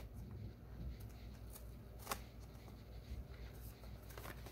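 Faint handling of a small cardboard cartridge box and its folded paper insert: light rustling and scraping, with one sharp click about two seconds in.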